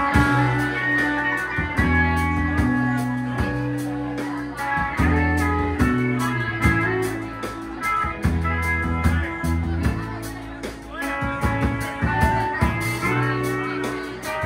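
Live band playing: electric guitars over a drum kit, with low held bass notes and a steady, evenly spaced cymbal beat.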